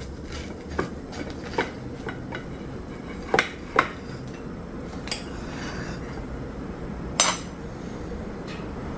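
A knife and plate clinking and scraping while a toastie is cut in half, with a handful of sharp knocks, two close together a little past three seconds and a louder one about seven seconds in.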